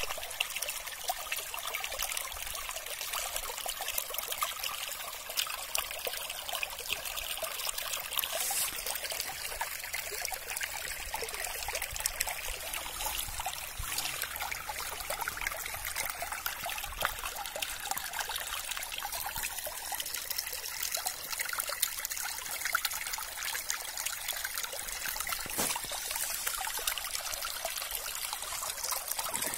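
Shallow stream trickling and babbling over a bed of pebbles and stones: a steady splashing hiss with fine crackles and no deep rumble.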